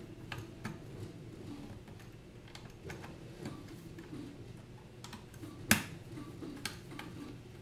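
Scattered light clicks and taps of hands working wires into the screw terminal block of a 24 V 400 W power supply, with one sharper click a little past halfway.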